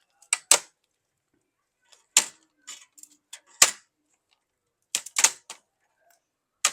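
Old laptop keyboard being pried out of the plastic top case, giving a series of sharp plastic clicks and snaps a second or two apart, some in quick pairs, as it comes free of its retaining clips.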